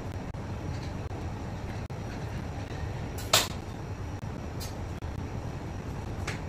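Steady low background rumble, with one sharp click a little past the middle and a couple of faint ticks later.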